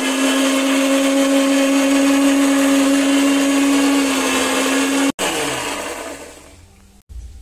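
Bajaj Popular mixer grinder running at full speed, grinding chopped ginger, garlic and tomato into a wet paste, with a steady high motor hum. About five seconds in it is switched off and the motor winds down, its pitch falling as it fades.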